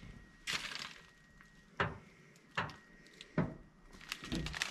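About five footsteps on plastic floor sheeting coated with wet epoxy overspray, each sole sticking to the sheet and peeling off with a short crackle.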